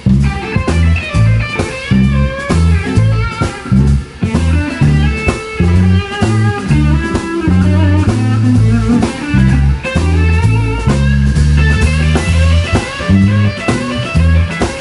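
Live band of electric guitar, bass guitar and drum kit playing an instrumental bluesy rock tune, with loud bass notes and steady drum hits under the guitar.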